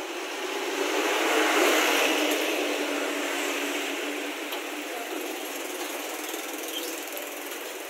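Hot beef broth poured from a ladle into a bowl of noodles, a pour that grows louder about a second in and dies down by about three seconds, over a steady background of street traffic.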